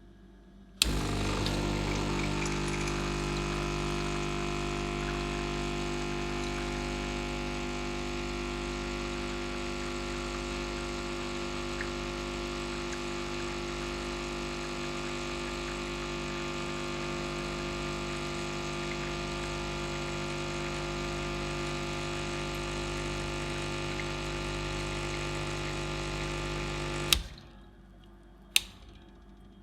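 Espresso machine's pump running with a steady buzzing hum while pulling a shot of espresso, starting and stopping with a click. A single sharp knock follows shortly after it stops.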